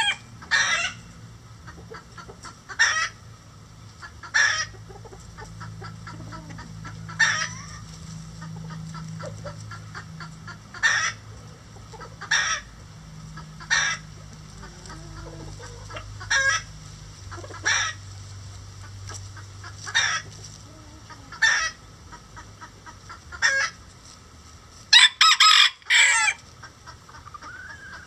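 Bantam chickens clucking: short single clucks repeated every second or two, with a louder pair of calls near the end.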